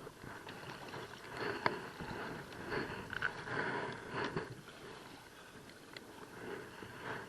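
Paddle strokes swishing and splashing in the water beside an inflatable kayak, in soft repeated swells, with a couple of short light knocks.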